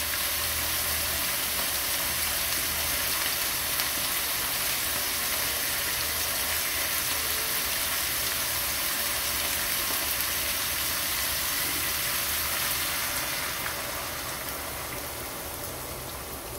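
Mixed vegetables (eggplant, potato, carrot and cucumber) sizzling steadily as they sauté in hot oil in a nonstick pan. The sizzle dies down near the end as tamarind water is poured in.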